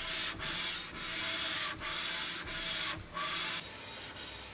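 Two welded steel straight edges being hand-lapped against each other with diamond paste: a metal-on-metal rubbing in back-and-forth strokes, each under a second, with a brief dip at every reversal. This is the three-plate method of wearing the surfaces flat. The strokes turn softer and a little quicker near the end.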